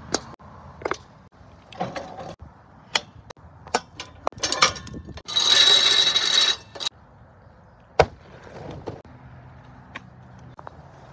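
Small electric winch on a dolly running for about a second and a half, a loud whir with a steady high whine, paying its synthetic rope through the fairlead. Around it come scattered clicks and knocks of handling the machine, with one sharp click about eight seconds in.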